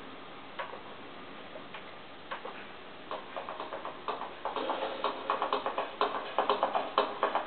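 Background music: a sparse ticking beat that builds, about three seconds in, into a faster, louder rhythmic pattern of repeated strikes.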